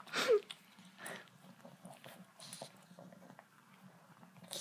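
Pug puppy licking and mouthing a sour candy, faint wet lip-smacking clicks as it reacts to the sour taste, with a brief louder sound just after the start.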